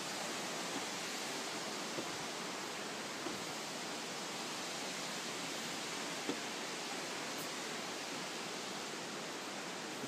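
Wangi Falls rushing steadily: an even, hissing water noise, with a few light taps over it.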